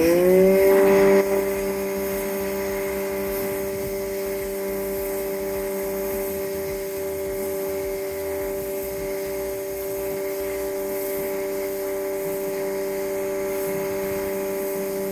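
Electric pressure washer motor spinning up with a rising whine, loudest in the first second, then running at a steady pitch.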